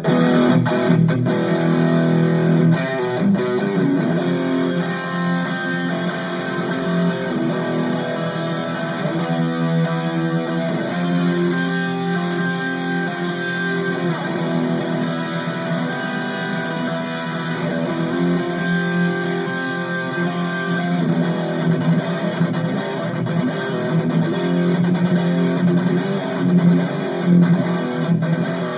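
Ibanez AZES40 electric guitar played through a Cuvave Cube Baby multi-effects unit, chords and notes ringing on without a break.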